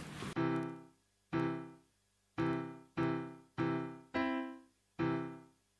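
Slow piano music: chords struck one at a time, roughly once a second, each ringing out and fading before the next.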